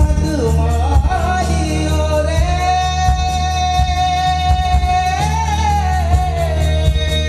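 Man singing into a handheld microphone over instrumental accompaniment with a steady beat. About two seconds in he holds one long note for about four seconds, bending it up and back down near its end.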